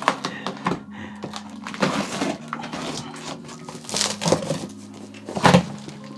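A large cardboard box being cut and torn open with a knife: a series of irregular scraping and ripping noises, the loudest near the end.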